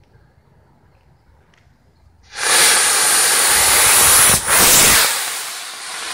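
Two D-size model rocket engines burning on a toy rocket car: a loud rushing hiss that starts suddenly about two seconds in, holds steady, then fades as the car moves away.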